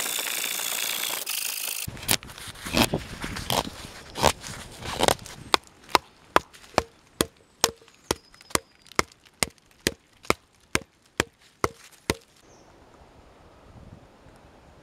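A scratchy rasping noise for the first couple of seconds, then wooden stakes being hammered into the ground with a piece of wood: a few irregular knocks, then a steady run of about sixteen sharp wooden blows, a little over two a second, each with a short ring, which stop about twelve seconds in.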